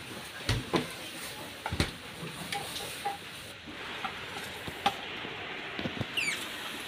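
A handful of sharp knocks and clicks from hands and tools working on a refrigerator, over a steady hiss, with a short high chirp near the end, likely a bird.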